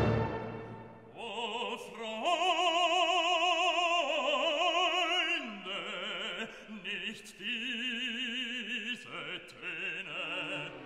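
Background music: an operatic solo voice singing long held notes with a wide vibrato.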